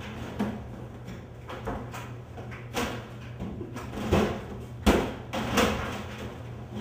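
Irregular thuds, knocks and scrapes of a body and shoes bumping against a washing machine's cabinet and the floor while someone struggles, the hardest knocks about four and five seconds in, over a steady low hum.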